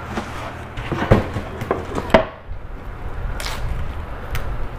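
Stiff plastic cutting boards being handled: a few sharp knocks and clacks as the boards bump against each other, the loudest about one and two seconds in, with rustling of their plastic wrap.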